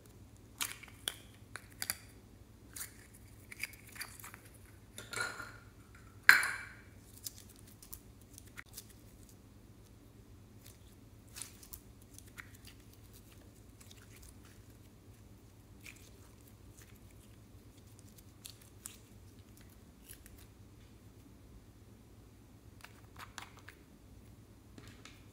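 Hard plastic ball capsule being twisted in the hands: a run of small sharp plastic clicks, then one loud snap about six seconds in as the halves come apart. After it come scattered faint clicks from handling, and a few more plastic clicks near the end as a second, purple capsule is handled.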